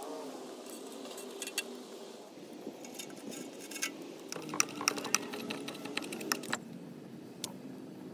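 Kitchen prep sounds: a run of sharp clicks and scrapes as fresh dill is worked against a metal box grater. The clicks come thickest about halfway through, with a few scattered taps near the end.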